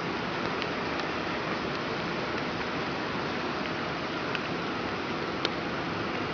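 Steady rush of water, with a faint sharp click about five and a half seconds in.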